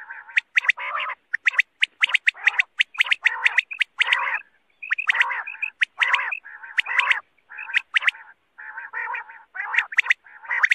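Quail (batair) calling over and over in quick groups of sharp, clicking notes mixed with raspy calls, broken by short gaps. Several birds seem to overlap. These are the calls of caged caller birds used to lure wild quail for hunting.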